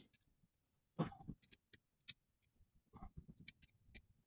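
Faint, scattered metal clicks and taps of an Allen key being taken from its storage spot under the handle and worked on the bolts of a Celestron CGX telescope mount, with a single louder knock about a second in.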